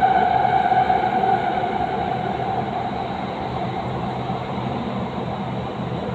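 Metro train running through a tunnel, heard from inside the front car: a steady rumble with a high whine that fades and the whole sound eases slightly after about a second and a half.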